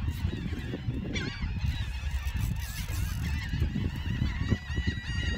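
A flock of birds calling, many short calls overlapping one another, with wind rumbling on the microphone underneath.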